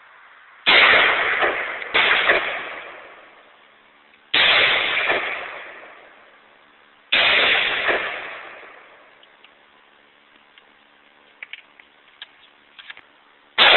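Del-Ton AR-15 rifle firing five single shots at uneven intervals, two in quick succession near the start and the last near the end, each followed by a long echo that fades out over a second or two. A few faint clicks come between the last two shots.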